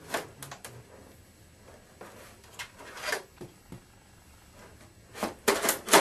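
Sheet-metal side panel of a PC tower being worked loose and pulled off: scattered clicks and knocks, then a burst of louder clatter near the end.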